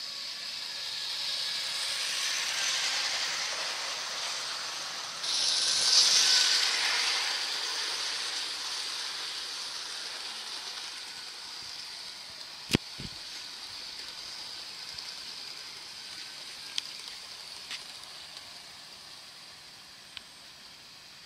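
O gauge Lionel Smithsonian NYC Dreyfuss Hudson model train with its passenger cars rolling past on metal rails: a steady hiss that swells, jumps louder about five seconds in, then slowly fades as the train goes by. A sharp click comes about halfway through, and a few faint ticks follow.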